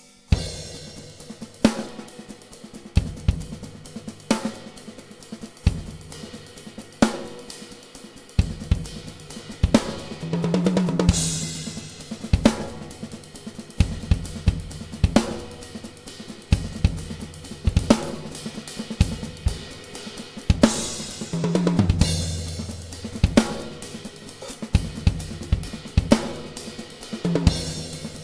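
Drum solo on a DW acoustic drum kit: hard bass-drum and snare accents every second or so over hi-hat and cymbal playing. Twice, about ten seconds in and again past twenty, a roll around the toms ends in a cymbal crash.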